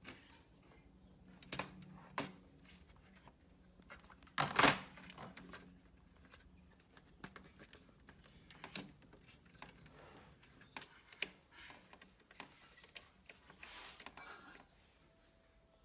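Quiet, scattered clicks and taps of laptop parts being handled and fitted, with one louder knock about four and a half seconds in.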